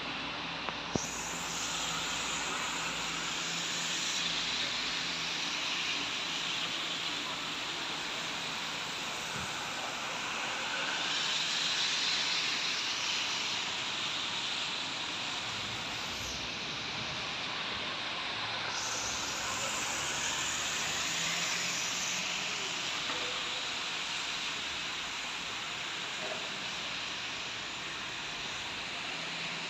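Steady hiss of rain and of tyres on a wet street, swelling gently a couple of times as vehicles pass. A single short click comes about a second in.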